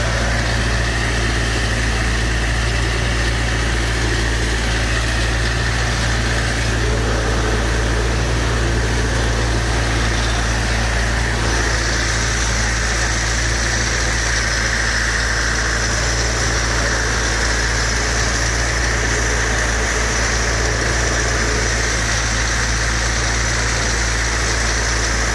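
Portable engine-driven water pump running steadily while pumping floodwater, with the rush of water pouring out of the discharge pipe; the rushing grows stronger about halfway through.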